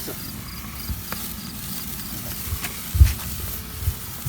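Steady outdoor hiss with faint, evenly repeated high insect chirping, and a few low thumps, the loudest about three seconds in.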